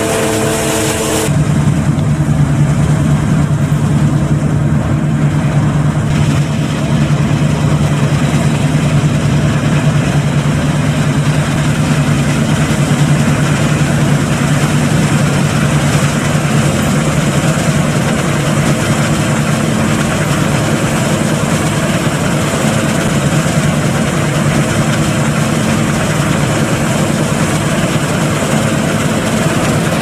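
Claas Lexion 450 combine harvester running steadily while harvesting: a constant engine hum over a wide rushing noise. The sound changes abruptly about a second in.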